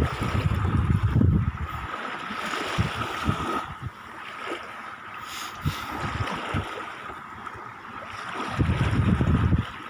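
Small waves lapping and washing up the shore, with wind buffeting the microphone in gusts at the start and again near the end.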